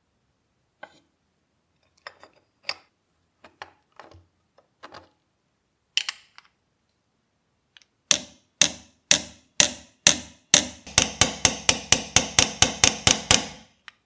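Small hammer tapping a punch to peen the rivet that holds the flint wheel on a Zippo lighter insert, each blow a sharp metallic strike with a short ring. The taps come about two a second, then speed up to about four a second before stopping just before the end. Earlier there are only a few scattered light clicks of small metal parts being handled.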